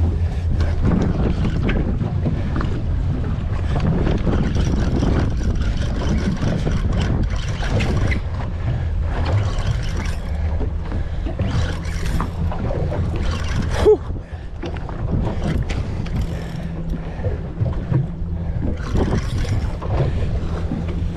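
Twin Mercury Verado 300 V8 outboards idling with a steady low hum, under wind buffeting the microphone. There is a single sharp knock about 14 seconds in.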